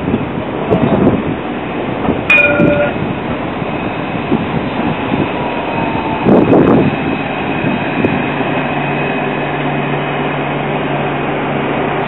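Alstom Citadis electric tram pulling into a stop, its drive giving a steady hum from about eight seconds in, with a short metallic ring about two seconds in.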